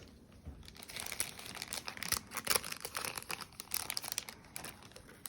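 Crinkly plastic or cellophane packaging being handled and rustled, a dense run of irregular crackles starting about a second in and easing off near the end.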